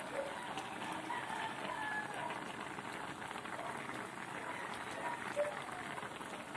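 Coconut milk boiling in a wok, a steady crackle of bubbles popping.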